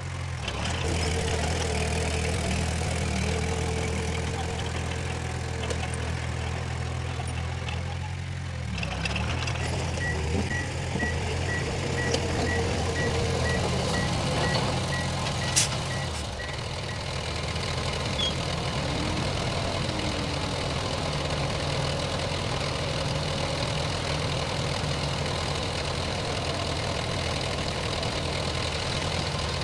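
Diesel engines of heavy earthmoving machinery running steadily, with a reversing alarm beeping about twice a second for several seconds midway through. A single sharp click sounds near the end of the beeping.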